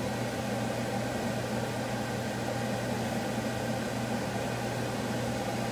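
Steady low mechanical hum under an even hiss, with no separate knocks or clinks.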